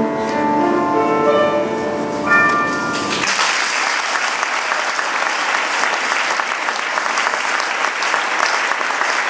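The last held notes of the song's instrumental accompaniment, cutting off about three seconds in, followed by an audience applauding.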